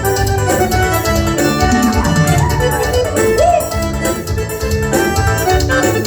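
Live forró band playing an instrumental passage: a keyboard melody over a steady bass and drum beat.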